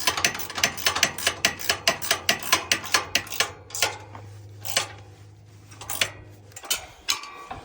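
Socket ratchet wrench being worked back and forth to tighten a bolt on a steel bumper mount, giving rapid clicking of about five clicks a second that thins out to scattered clicks after about four seconds. A steady low hum runs underneath and stops about six and a half seconds in.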